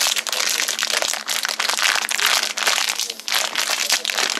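Foil wrapper of a chocolate surprise egg crinkling and crackling as it is handled and unwrapped, a dense run of rapid crackles that eases briefly about three seconds in.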